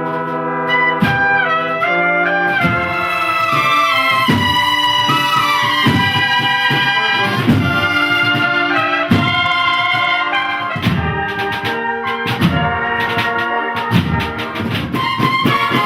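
Bugle and drum band playing a march: cornets carry a moving melody over regular drum beats.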